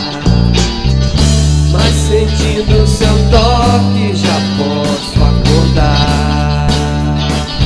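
Rock band music without lyrics: a guitar line winding over held bass notes and a regular beat.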